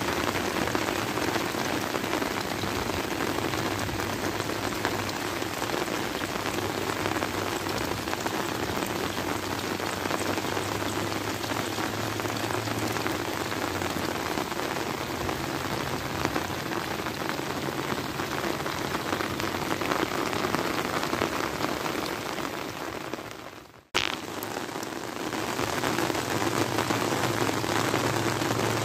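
Heavy rain pouring steadily onto flooded rice paddies, a dense even hiss. It fades and cuts out briefly about three-quarters of the way through, then comes straight back.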